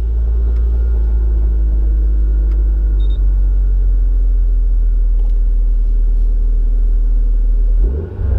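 Mitsubishi Lancer Evolution VII's turbocharged 4G63 inline-four with a Kakimoto Kai Regu06&R exhaust, heard from inside the cabin, idling fast just after start-up, its pitch settling slowly lower. Near the end comes a brief blip of the throttle.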